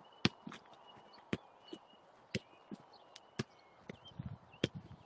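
Football being passed against a rebounder and back: sharp ball strikes about once a second, with fainter taps and touches between.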